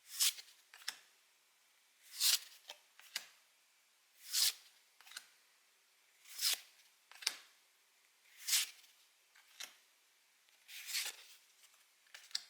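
Pokémon trading cards handled one at a time, a short paper swish about every two seconds, each followed by a light tap, as cards are slid from a freshly opened pack's stack.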